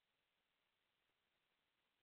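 Near silence: a pause between phrases of speech, with only a faint steady hiss.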